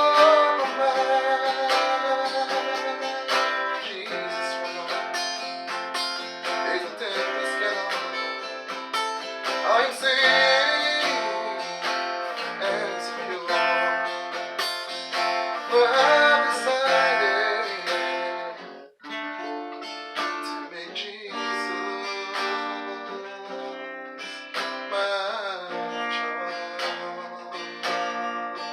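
Acoustic guitar music, strummed, with a brief break about two-thirds of the way through.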